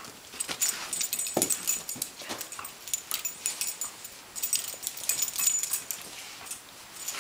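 A greyhound playing with plush toys on a dog bed: scuffling and rustling throughout, with short high-pitched clicks and a few soft whimpers.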